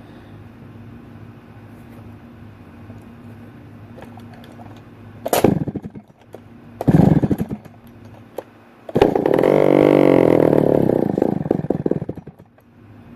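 McCulloch 1-71 direct-drive chainsaw engine being pull-started: two brief pops about a second and a half apart, then it fires and runs for about three seconds before dying out. It is typical of a saw running only on its prime, which the owner suspects is not drawing fuel from the tank.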